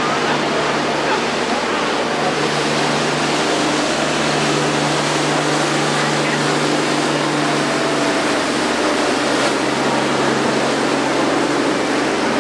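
Steady rush of water with a low engine drone underneath, as heard aboard a small boat running alongside a ship, with faint voices in the background.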